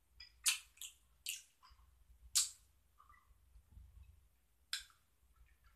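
A person chewing a soft, sour gummy candy (a Sour Patch Kid) with the mouth closed: about five short, sharp, wet mouth noises at uneven intervals.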